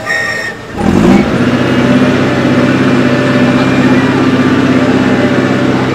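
A motor picks up about a second in, its pitch rising briefly, then runs with a loud steady drone.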